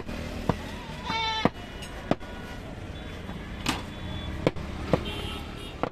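Butcher's cleaver chopping goat meat on a wooden chopping block: about seven sharp, irregularly spaced chops. A short bleat comes about a second in.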